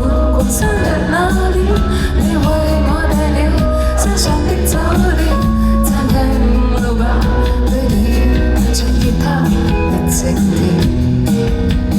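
Live band performing an indie pop song: a voice singing over guitar, bass and drums.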